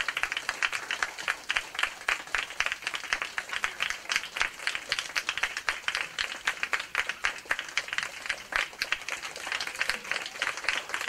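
Theatre audience applauding steadily: a dense, continuous patter of many hands clapping.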